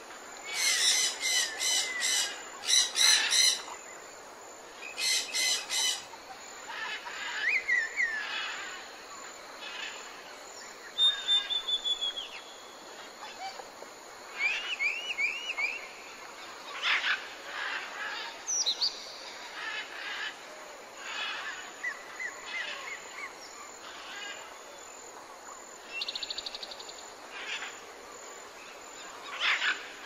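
Several songbirds calling over a steady background hiss: rapid chirps, short trills and falling whistles, with the loudest bursts of quickly repeated notes in the first six seconds.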